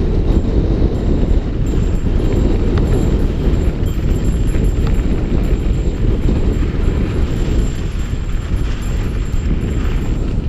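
Loud, steady rumble of wind buffeting the bike-mounted camera's microphone, mixed with tyre noise over a dirt trail as a mountain bike rides downhill, with a few faint rattles.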